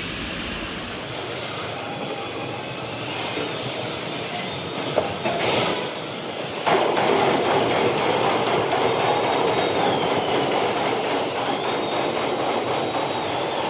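Steady industrial machine noise from factory machinery, with a click about five seconds in, growing louder about seven seconds in.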